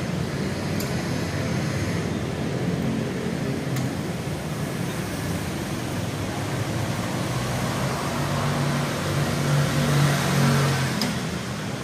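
Beninca electromechanical linear operators running to swing both leaves of an iron double gate closed: a steady motor hum amid constant background noise.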